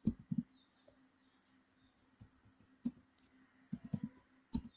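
Computer keyboard keystrokes: a few scattered key clicks, with gaps of up to a couple of seconds between them, over a faint steady hum.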